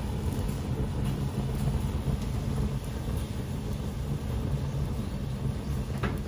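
White wine at a rolling boil in an aluminium saucepan on a gas burner, its alcohol burning off in flames over the pan: a steady low rumble of boiling, burner and flame.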